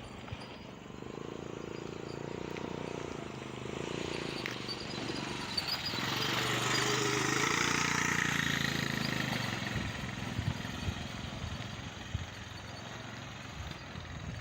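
A four-wheeler (ATV) drives past: its engine grows louder over several seconds, is loudest about seven seconds in, then fades away.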